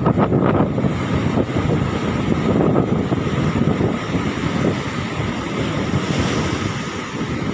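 Strong wind buffeting the microphone: a loud, gusty low rumble that rises and falls throughout.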